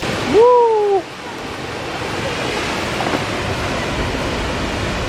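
Krimml Waterfalls roaring steadily, growing a little louder over the few seconds, with a person's short exclamation about half a second in.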